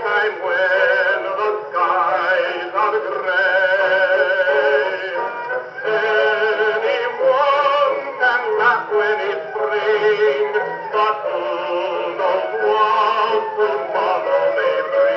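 An Edison Disc Phonograph from about 1925 playing a 1920s Edison disc recording of band music through its built-in horn. The sound is continuous and pitched, with no deep bass or high treble.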